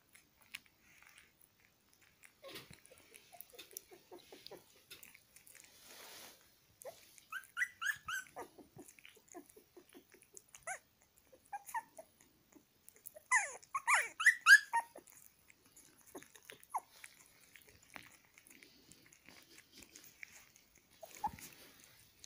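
Newborn puppy eating boiled egg yolk from fingers: quiet licking and smacking throughout, with two bursts of high-pitched puppy squeaks about 8 and 14 seconds in, the second the louder.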